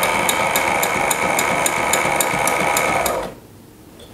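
Sailrite LSZ-1 Ultrafeed portable walking foot sewing machine stitching through four layers of leather with piping, at about four stitches a second over a steady motor whine. It stops suddenly a little after three seconds in. The machine is sewing right at the limit of the thickness it can take.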